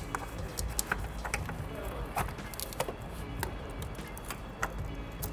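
Scattered light clicks and taps of plastic parts and wiring being handled and fitted in an engine bay, over quiet background music.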